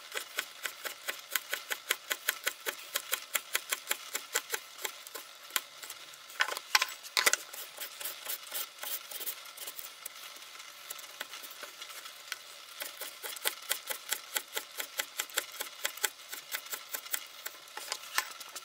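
Small Wenger pocket-knife blade slicing a raw carrot into thin strips on a plastic cutting board: quick, even crisp cuts about three or four a second, with a few louder knocks partway through and a short lull before the cutting resumes.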